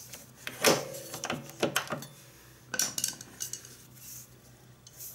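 Metal-on-metal clinks and taps of a screwdriver working the small pivot axle out of a motorcycle footpeg bracket: a handful of sharp clinks, some briefly ringing, mostly in the first three seconds, the loudest about half a second in.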